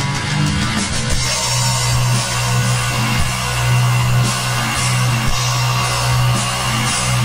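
Stoner doom metal played by a band: a low guitar note held under drums and recurring cymbal crashes.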